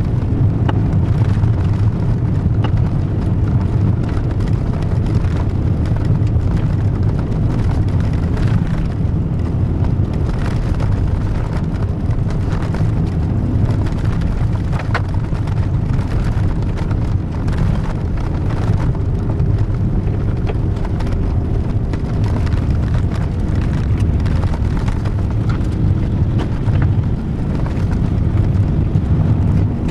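Cabin sound of a Volkswagen 1.9-litre turbodiesel car driving on a gravel road: a steady engine drone with tyre and gravel rumble, and scattered small clicks of stones against the car.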